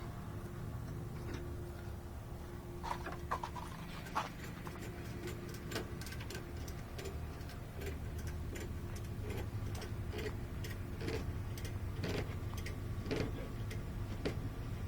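Truck engine idling with a steady low hum, with irregular light clicks and clinks over it from about three seconds in.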